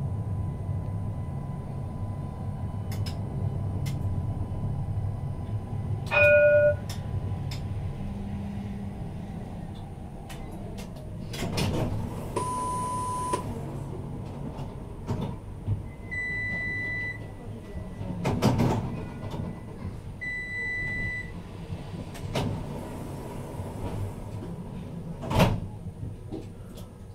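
Tram running with a low steady rumble that dies away after about ten seconds as it comes to a standstill. There is a loud short electronic beep about six seconds in, a few higher beeps and clicks while it stands, and a sharp knock near the end.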